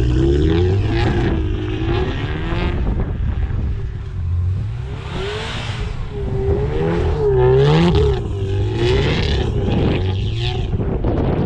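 Car engine revving hard with the throttle floored, its pitch rising and falling again and again as the car spins circles in deep snow.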